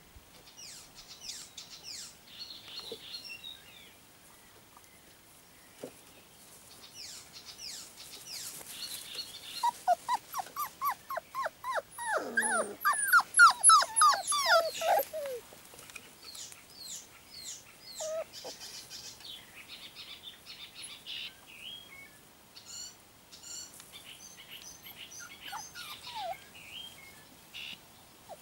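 4½-week-old puppies whining and yipping: a quick run of high, falling cries about ten seconds in, growing loudest before trailing off, with a few scattered faint whimpers before and after.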